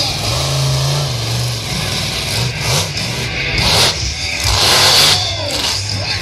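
Monster truck engine revving hard, its pitch rising and falling, then loud bursts of crashing noise from about the middle on as the truck climbs over junk cars and slams down. The loudest burst comes about five seconds in.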